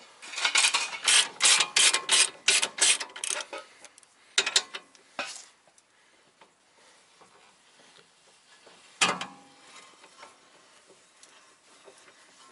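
Hand ratchet wrench clicking in quick back-and-forth strokes, about four a second, as a rear suspension bolt on a VW Jetta wagon is run out; the strokes stop after a few seconds, two more follow, and a single sharp metal clank comes near the middle.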